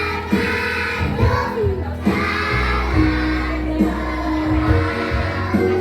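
A choir of young children singing along to backing music with a steady bass line.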